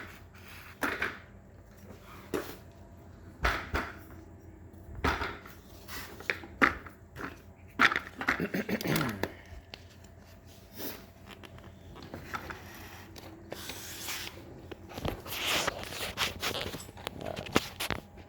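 Scattered clicks, knocks and rustling of hands and tools handling a small bicycle's wheel and parts, with a short falling squeak-like sound about eight seconds in.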